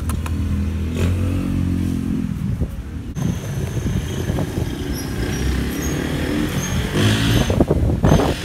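A motor vehicle engine running, steady in pitch for the first few seconds, with a short burst of noise near the end.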